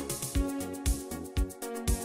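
Euro-disco synth-pop karaoke backing track: a steady kick drum about twice a second, hi-hat ticks between the beats and sustained synthesizer chords.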